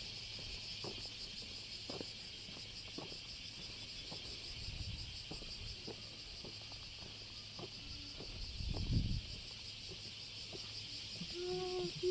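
Steady high-pitched chorus of insects, with a brief low rumble about nine seconds in.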